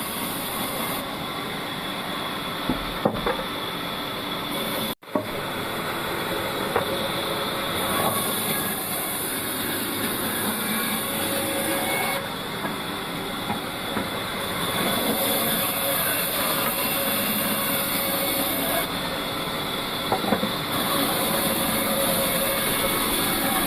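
Old band sawmill running, its blade cutting through a dry log with a steady mechanical noise. A few sharp knocks stand out, and the sound breaks off for an instant about five seconds in.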